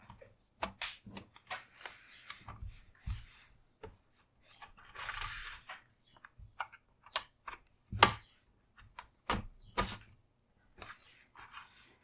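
Bottom-cover clips of an Acer Swift X laptop snapping loose one by one as a pry tool is run along the cover's edge: a string of sharp clicks, the loudest about two-thirds of the way in, with short scraping stretches between them.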